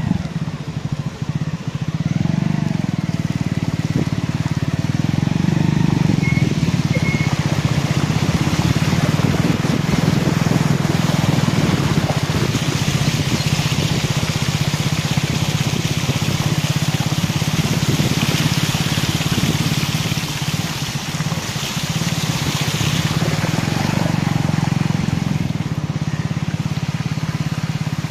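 A motor vehicle's engine running steadily as it moves through flood water, with a rushing splash of water that grows louder in the middle.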